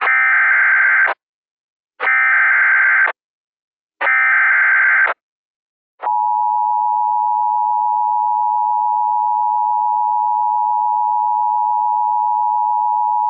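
Emergency Alert System SAME header: three bursts of digital data tones, about a second each with a second's gap between them, then the EAS attention signal comes on about six seconds in and holds as one steady tone.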